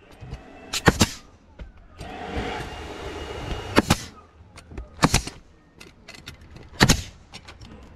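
Pneumatic roofing nail gun firing nails through asphalt shingles: four sharp shots spaced a second or more apart, with a stretch of rushing hiss between the first two.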